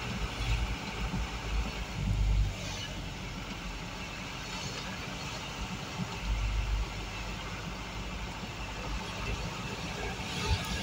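Engine and road noise of a moving vehicle heard from inside its cab: a steady low rumble that swells briefly a couple of times.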